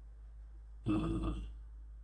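A man's brief wordless vocal sound, a short grunt or "hmm" lasting about half a second, about a second in, over a low steady hum.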